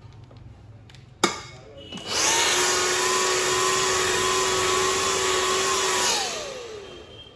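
A sharp click, then a hand-held hair blow dryer runs with a steady rush of air and motor whine for about four seconds before being switched off and winding down with a falling whine.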